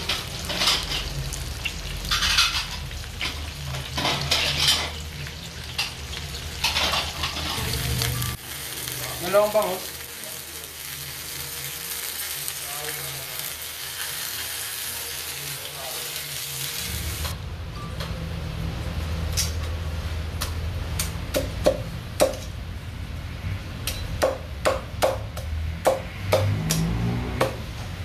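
Food sizzling in oil on a flat-top griddle, with a metal spatula scraping and turning it in repeated strokes. Near the end comes a run of sharp knocks as fried meat is chopped with a cleaver on a wooden block.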